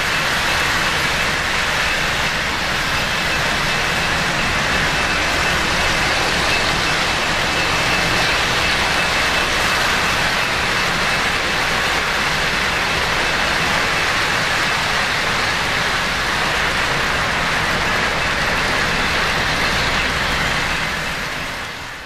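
3-rail O gauge model train running on its track: a steady rolling noise with a faint thin high whine, fading out near the end.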